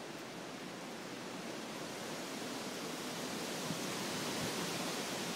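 Hurricane-force wind blowing through the trees, a steady rushing noise that builds a little louder from about two seconds in.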